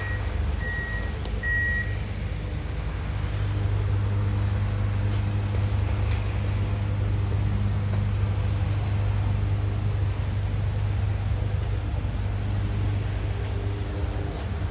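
Backup alarm beeping steadily for about the first two seconds, over the steady low drone of diesel engines from CSX track-maintenance machines, which runs on after the beeping stops.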